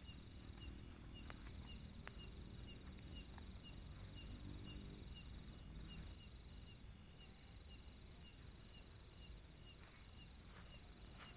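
Faint night-time insect chorus: a steady high drone with a short chirp repeating about twice a second.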